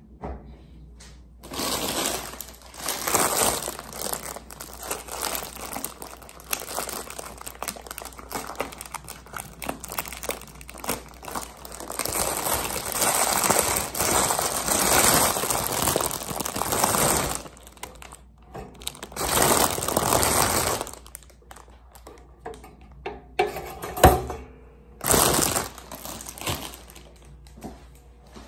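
Plastic bread bag crinkling and rustling in long bursts as slices are taken out, then a single sharp click near the end.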